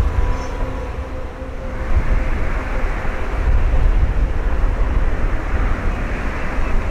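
Twin-engine jet airliner noise with a strong low wind rumble on the microphone. About two seconds in, faint steady engine tones give way to a broader, louder jet roar.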